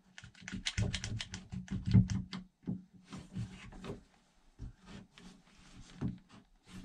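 Irwin Quick-Grip one-handed bar clamp being ratcheted tight on a wooden block: a rapid run of sharp clicks for the first couple of seconds, then quieter scraping and handling of wood as the block is set against the frame.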